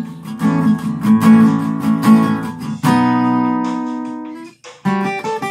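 Acoustic guitar strummed solo, without singing. About three seconds in, a chord is struck and left to ring, dying away over a second and a half before the strumming starts again.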